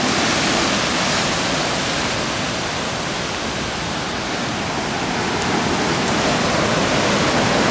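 Ocean surf breaking and washing over a rocky shore: a steady, loud rush of whitewater that eases a little midway and builds again near the end.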